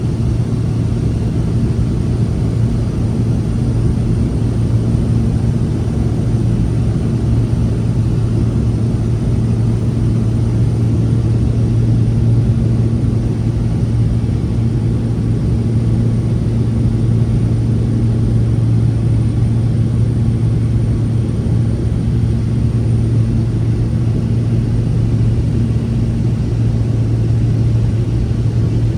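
Steady engine and propeller drone heard from inside a small plane's cabin in flight, a constant low hum with no change in pitch.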